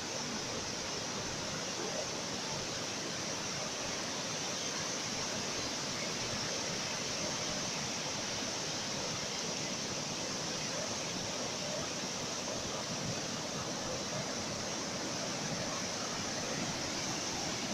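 Ocean surf: a steady, unbroken wash of breaking waves with no separate crashes standing out.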